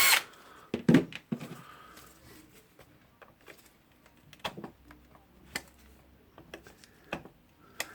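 A cordless screwdriver's motor stops right at the start. Then come scattered light clicks and knocks of small tools and metal parts handled during disassembly of the rotary hammer, the louder ones about a second in and again around the middle and near the end.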